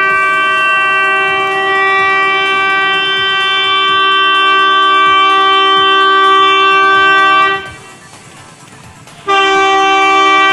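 Horn of an approaching locomotive sounding two long blasts, each a steady chord of several notes. The first lasts about eight seconds, and after a pause of under two seconds the second starts and is still sounding at the end.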